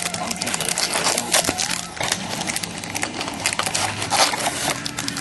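Plastic and foil card-pack wrapping crinkling and crackling as a box of trading cards is unwrapped and its packs handled, a dense run of irregular crackles.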